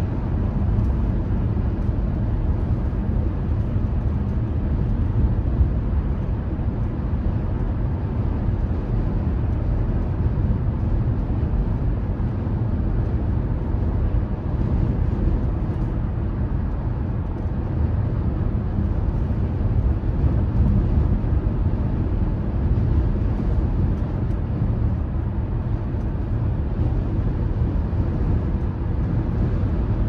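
Car cruising at highway speed: a steady low rumble of tyres on the road and engine noise.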